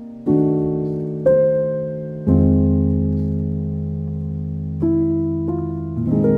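Slow, soft piano music: chords struck a few at a time about a second apart, then a longer held chord, each left to ring and fade before the next.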